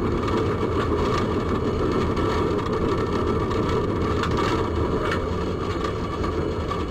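Tram running along its tracks, heard inside the driver's cab: a steady rumble of wheels on rails and drive motors.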